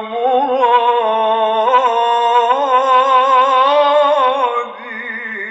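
Male voice singing a long, ornamented melismatic phrase in Egyptian ibtihal style, the held notes wavering and bending in pitch. About four and a half seconds in it drops to a quieter close.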